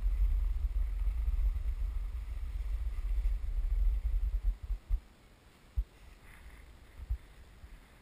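Wind buffeting the microphone while skiing, a loud low rumble that drops away about four and a half seconds in, leaving a few short gusts.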